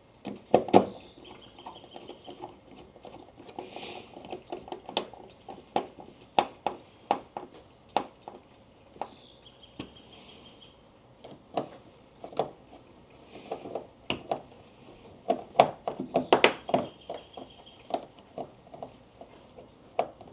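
Irregular clicks and knocks of plastic parts and a Phillips screwdriver as a Mazda Miata's turn-signal housing is refitted and its screws are driven in.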